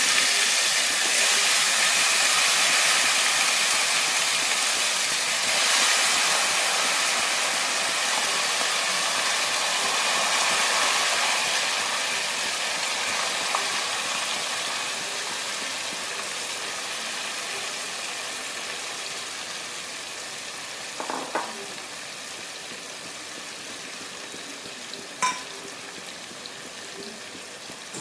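Marinated goat meat sizzling in hot oil in a kadai. The frying hiss is loud at first and gradually dies down, with a few light clinks later on.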